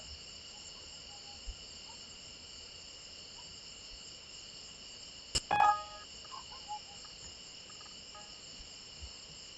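Steady high-pitched background whine, constant under the quiet room tone. About halfway through, a sharp click is followed by a brief tone lasting about half a second.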